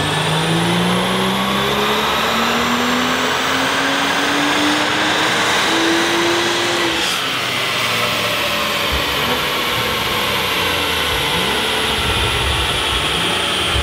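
BMW M235i's turbocharged 3.0-litre straight-six, breathing through a Scorpion cat-back exhaust, at full throttle on a rolling-road dyno: the revs climb steadily for about seven seconds, then the throttle is lifted and the engine and rollers wind down.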